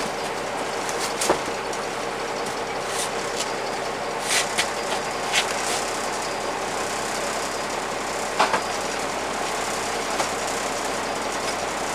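Bus diesel engine idling steadily, with a few short knocks and clunks at intervals.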